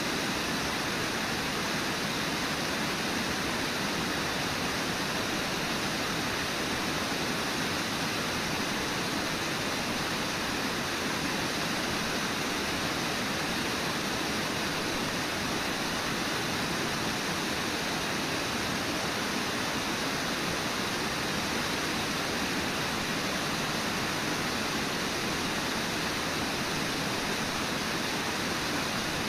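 Steady, unbroken rush of Brooks Falls, river water pouring over the lip of the falls.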